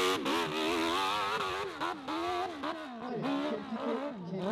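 Dirt bike engine revving hard under load on a steep dirt hill climb, its pitch rising and falling again and again as the throttle is worked, with a few short sharp cracks.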